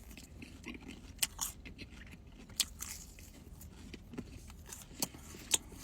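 Biting into and chewing a beef meat pie, its pastry crust giving scattered crisp clicks and crunches.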